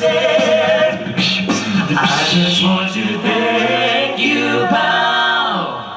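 Male a cappella vocal group singing in close harmony, the voices gliding down together to the final chord near the end as the song finishes.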